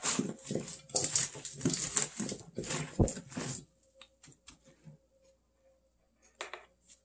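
Gloved hands tossing cubed radish with chili flakes in a stainless steel bowl: quick, repeated rustling, clattering strokes for about three and a half seconds, then stopping. Only small clicks follow, with one short noise near the end.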